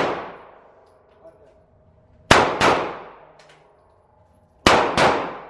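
Gunshots on an indoor shooting range, fired in two quick pairs. The first pair comes about two seconds in and the second near the end, with the two shots of each pair about a third of a second apart. Each shot is loud and rings out in a long echo.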